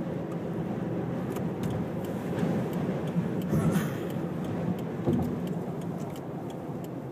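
Steady road noise inside a car moving at highway speed: a low rumble of tyres and engine, with scattered light ticks and rattles.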